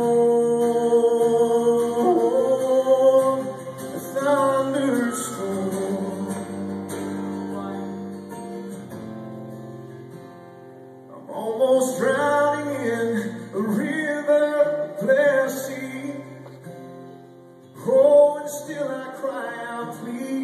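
Solo acoustic guitar strummed as an instrumental interlude. A man's voice holds notes and sings wordless phrases over it, with quieter stretches where the guitar plays alone.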